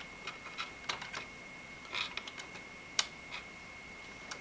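Scattered small clicks and taps as a graphics card's metal bracket and edges knock against the computer case while it is lined up with the expansion slot, with a sharper click about three seconds in.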